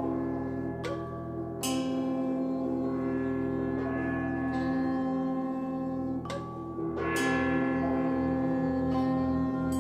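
Gongs and other struck metal percussion ringing in a slow improvised-sounding ensemble texture: a few separate mallet strikes, each leaving long overlapping ringing tones over a steady held low tone. From about seven seconds in the low ringing takes on a pulsing waver.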